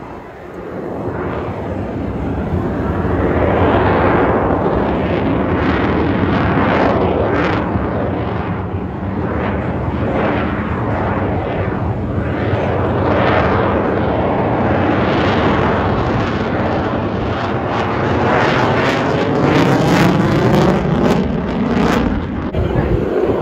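A fixed-wing aircraft flying past: loud engine noise that builds over the first few seconds and stays loud, with a whooshing, swirling tone as it passes.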